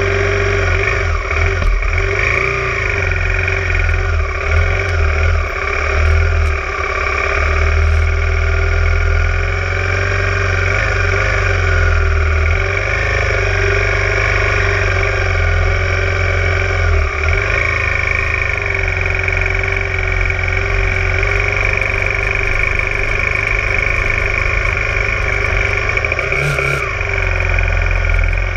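Honda Tornado 250 single-cylinder four-stroke motorcycle engine running while riding, its pitch rising and falling with the throttle over a steady low rumble.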